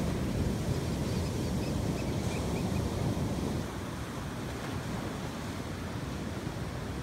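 Ocean surf breaking and washing up the beach, a steady rushing noise with some wind on the microphone. It eases off slightly about three and a half seconds in.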